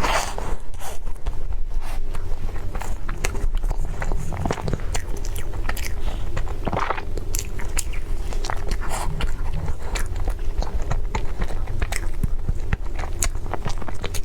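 Close-up eating sounds: a person biting and chewing food, with many small crisp clicks and crunches over a steady low hum.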